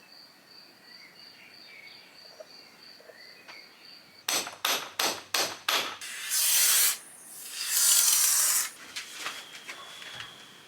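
A faint high steady chirping, then about six sharp knocks in quick succession, like hammer blows, followed by two loud hissing rushes of about a second each.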